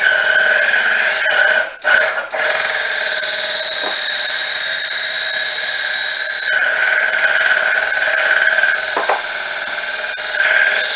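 Grizzly mini mill boring out a V-belt pulley's bore with a brazed-carbide boring bar: a steady, high-pitched squealing ring of the cut. It drops out briefly about two seconds in.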